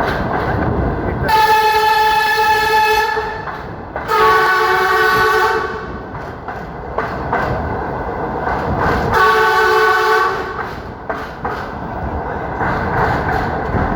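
Train horn sounding three long blasts: two about a second apart, then a third a few seconds later. Underneath runs the steady rumble and clatter of the train rolling on the rails, heard from aboard the train.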